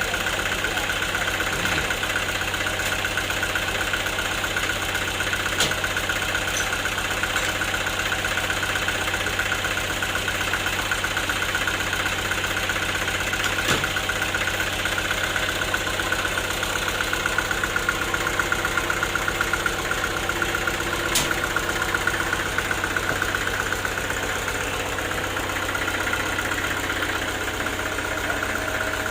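Sawmill machinery running steadily: a constant engine-like drone with a steady high whine, broken by three sharp clicks spread across it.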